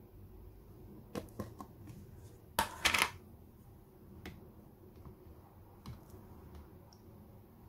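Handling noises of kitchen things on a countertop: a few light clicks, then a louder brief clatter about three seconds in, then scattered faint clicks.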